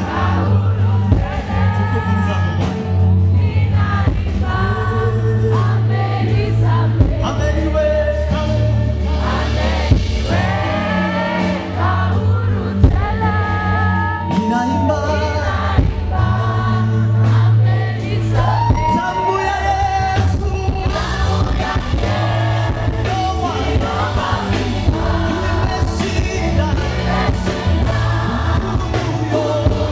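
Live gospel band music: lead singing with backing vocals over a band, with a steady bass line that shifts notes every few seconds.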